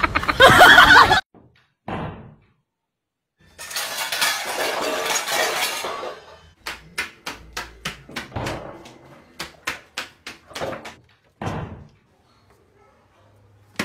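A run of about a dozen sharp, irregular knocks and clatters over some five seconds, after a couple of seconds of rushing noise.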